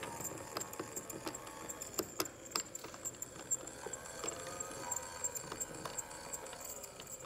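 Antique walking doll's internal mechanism running: a faint wavering whir with many irregular clicks and ticks as she walks. She is moving a little slow, an old mechanism.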